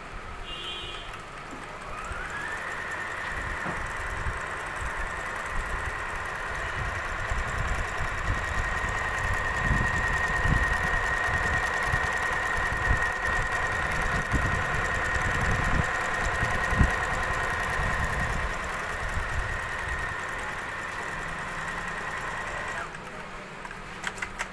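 Juki HZL-7800 computer sewing machine sewing a decorative stitch: its motor whine rises about a second and a half in, runs steady with the needle's rapid thudding beneath, then stops near the end.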